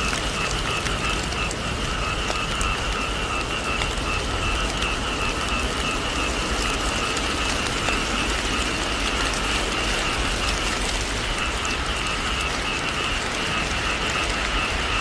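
Steady heavy rain, an even hiss, with a steady high whine at two pitches running through it.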